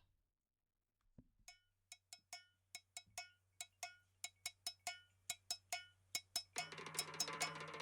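Background music fading in: a faint, steady pattern of pitched hand-percussion strikes, about two to three a second, growing louder, with the fuller band joining near the end.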